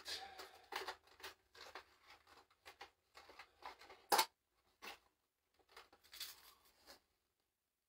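Fishing-lure packaging rustling and crinkling in short bursts as a lure is unwrapped by hand, with one sharp click about four seconds in; the handling stops about seven seconds in.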